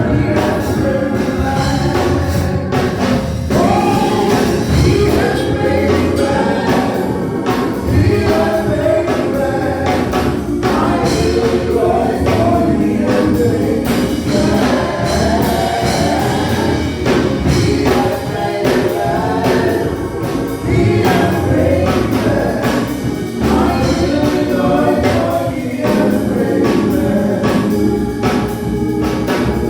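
Gospel choir singing a praise song with a band accompaniment and a steady beat.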